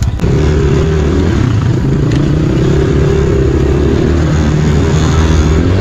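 Enduro motorcycle engine running, its pitch rising and falling with the throttle, coming in abruptly just after the start.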